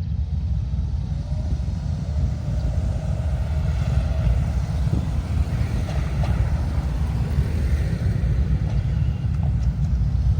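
A passing vehicle with a steady low rumble.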